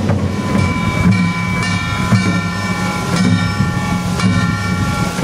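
Korean traditional drum music: large barrel drums beating an uneven rhythm of deep thumps under a held, nasal horn-like tone that sets in just after the start.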